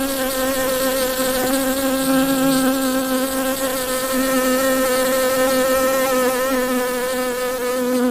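Honeybee buzzing in a loud, continuous drone whose pitch wavers slightly.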